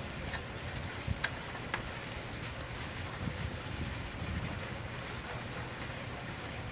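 Steady wind noise on the microphone, with three light clicks in the first two seconds as a DeWalt circular saw is handled and adjusted while switched off.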